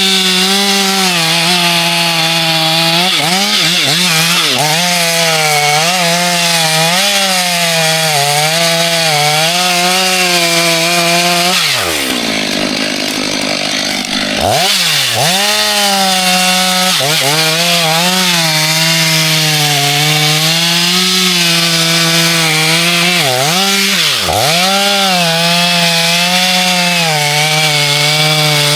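Chainsaw running at high revs while cutting into a tree trunk, its engine note wavering and dipping as it works under load. About twelve seconds in the note falls away for about two seconds, then revs back up.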